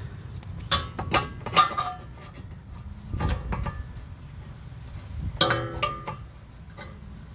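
Metal tools and parts clinking against each other in two short clusters, about a second in and again near six seconds, each strike ringing briefly, with a dull low knock in between.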